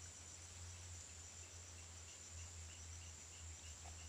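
Quiet rural ambience: insects making a faint steady high drone, with a faint run of soft, evenly spaced chirps from about a second and a half in, over a steady low hum.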